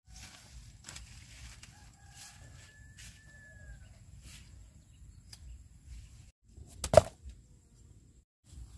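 Rustling of leaves and vines as gourds are handled and picked, with a rooster crowing faintly, one held call of about a second and a half beginning about two seconds in. A single sharp knock about seven seconds in is the loudest sound.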